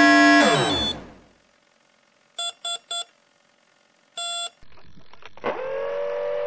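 An electric model-plane motor whines steadily, then winds down in pitch and stops. A brushless speed controller beeps three short beeps and one longer one, its arming tones. Then, through the hiss of the FPV video link, the Easystar's NTM 35-36B 1400Kv brushless motor spins up and holds a steady whine.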